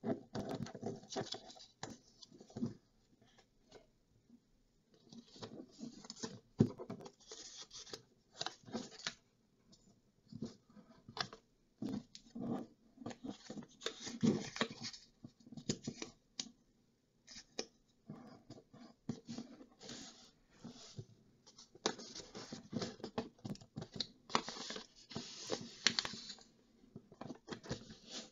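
A sheet of paper being folded and creased by hand: irregular rustling and crinkling with sharp taps as the folds are pressed flat, in bursts separated by short pauses.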